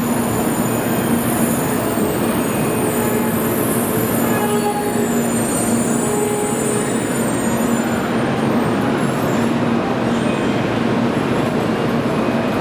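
N700-series Shinkansen train running: a steady rumble of wheels and motors with a steady low hum.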